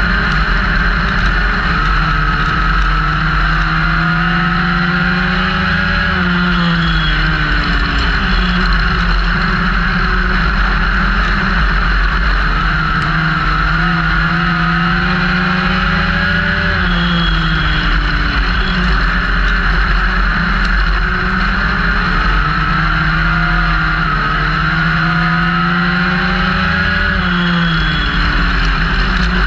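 Legends race car's Yamaha motorcycle engine heard from inside the car at racing speed. The revs climb steadily for several seconds, then drop sharply, three times over: full throttle down each straight, then lifting for the turns.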